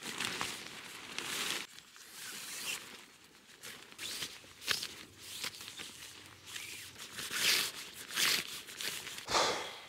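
Polyester tent flysheet rustling and crinkling in irregular bursts as it is pulled out and spread over dry leaf litter.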